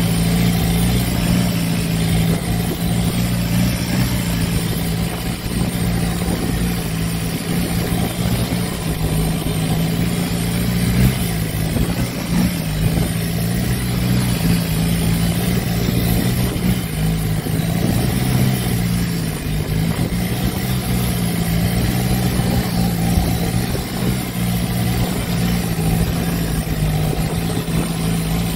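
Boat engine running steadily under way, with a hiss of wind and water rushing past.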